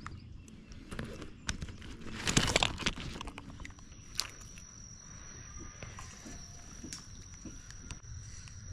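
Handling noise of gear and a fish on a plastic kayak: a burst of knocks and rattles about two seconds in, then scattered single clicks. A thin, steady high-pitched whine starts about halfway through.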